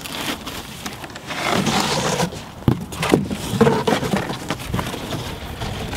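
Cardboard being handled and folded: scraping and rustling, with a few sharp knocks around the middle.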